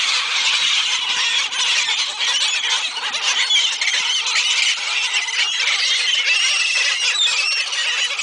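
A flock of gulls calling over one another, many overlapping high squealing cries, noisy and continuous, as they crowd in for thrown food.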